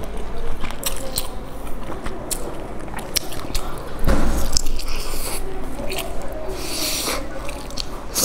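Biting into and chewing a fried dumpling soaked in chili sauce, with many sharp wet mouth clicks. The loudest bite comes about four seconds in.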